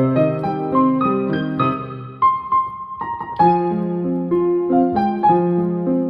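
Piano music: a melody over chords, with notes struck and left to ring. About two seconds in, the playing thins to a single held high note, then fuller chords start a new phrase.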